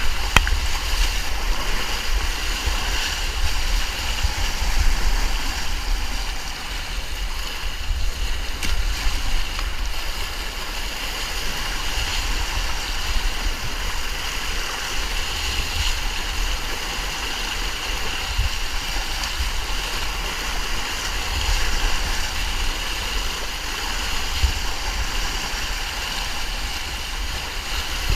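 Steady rushing of a whitewater river rapid, with a low rumble underneath that comes and goes.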